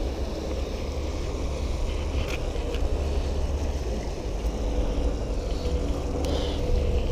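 River tour barge passing close by, its motor running with a steady low rumble and a faint hum.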